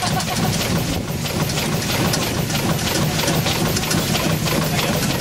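Small vertical marine steam engine of a steam launch running at a steady speed: a fast, even clatter of its reciprocating gear and exhaust beats over a low hum.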